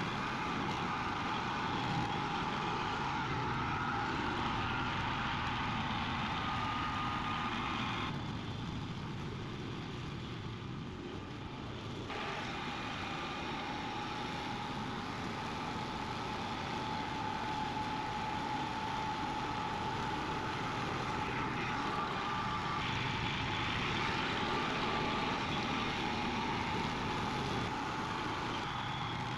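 Thirty-year-old hammer knife mower running steadily while cutting small weeds, with a steady whine over its engine noise; it goes a little quieter for a few seconds about eight seconds in, then picks up again.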